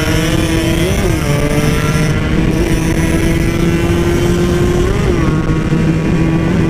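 Two-stroke motorcycle engine running at a steady cruising speed, with a rough rushing noise under it. Its pitch jumps briefly and settles about a second in and again near five seconds, with a smaller blip near the end.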